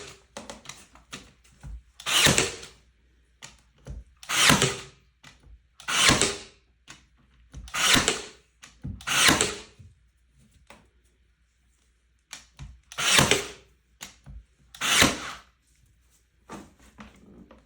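Ryobi 18-gauge brad nailer firing brad nails into squeaky parquet floorboards to pin them down. There are about seven shots, each a short burst of about half a second, with light clicks and knocks between them and a pause of a couple of seconds past the middle.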